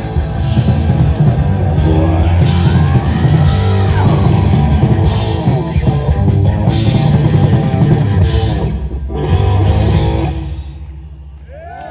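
A live heavy metal band plays loud distorted electric guitars and a drum kit. The full band drops out about ten seconds in, leaving a quieter sustained ringing tone.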